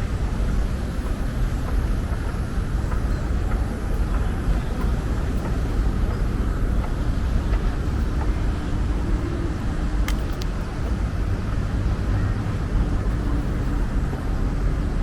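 Steady low rumble of city road traffic, with a faint hum partway through and a single sharp click about ten seconds in.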